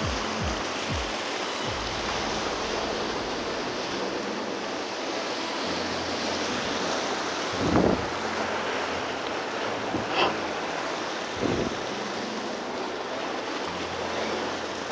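Sea surf washing and breaking over shore rocks, with wind buffeting the microphone. Three brief thumps stand out in the second half.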